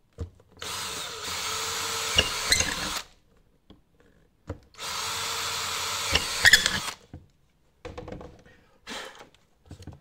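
Cordless drill with a 5 mm bit boring two holes into a uPVC door sash, two steady runs of about two and a half seconds each, with a few sharp clicks near the end of each run. Short handling knocks follow near the end.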